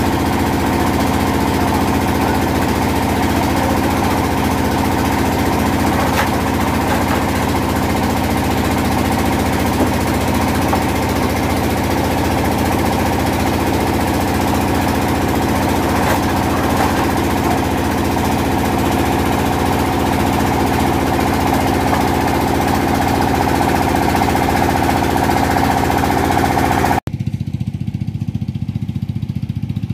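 Brick extruding machine's engine running steadily, a loud, even mechanical drone with a couple of faint clicks. About 27 seconds in it cuts off suddenly, leaving a quieter low hum.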